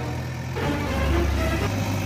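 Background music with low held notes that change every second or so, over a steady mechanical running sound.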